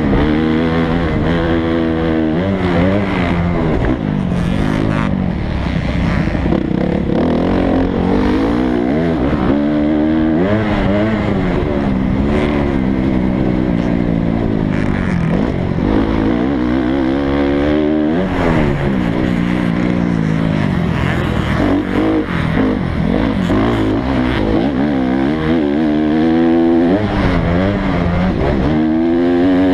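Dirt bike engine heard onboard, revving up and down over and over as the rider opens and shuts the throttle and shifts through the jumps and turns of a motocross track, with sharp drops in pitch each time the throttle is chopped.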